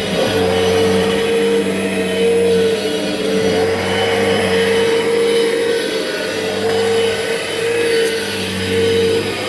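Kirby Generation 5 upright vacuum (1998) running with a steady motor hum, its pitch holding level throughout. It runs without anything locked up despite long disuse: not running too bad.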